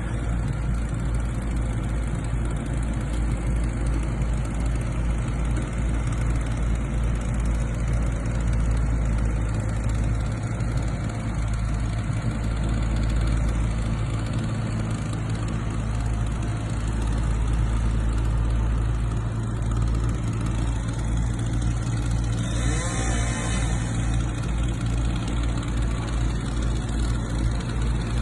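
A large engine running steadily at a constant speed. About three-quarters of the way through, a brief higher-pitched sound with a shifting pitch lasts about two seconds.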